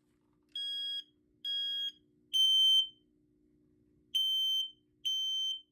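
Smoke alarm being tested, sounding high-pitched piezo beeps in the three-beep temporal alarm pattern: three beeps, a pause of about a second and a half, then three more.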